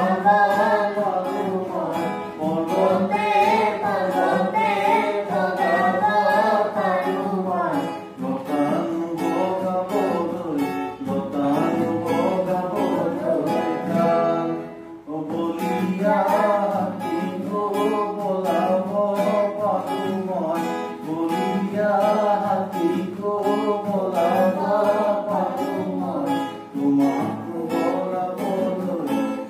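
Acoustic guitars strummed while a man and a boy sing a song together, with a short break in the playing a little before halfway.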